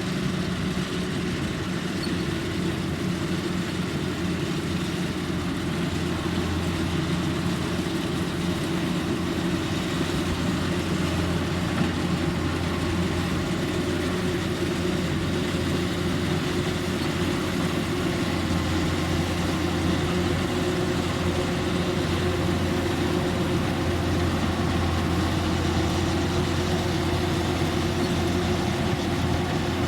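Kubota rice combine harvester's diesel engine running steadily at an even speed, with a constant low drone and mechanical noise.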